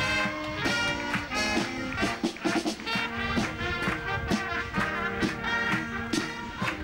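Marching band playing live: brass ensemble holding chords and a melody over drums that mark a steady beat.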